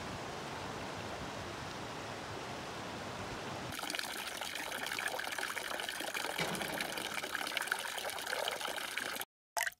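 Steady rushing of a shallow river flowing over a low weir and past rocks. About four seconds in it gives way to a small fountain jet splashing into a stone basin. Near the end a single water drop falls.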